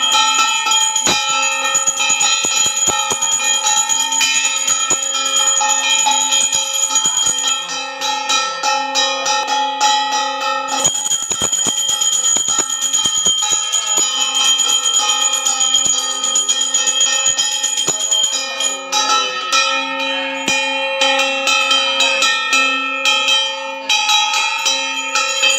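Small hand-held brass gong (kansar) beaten rapidly and continuously with a wooden stick, its metallic ringing sustained under the fast strokes.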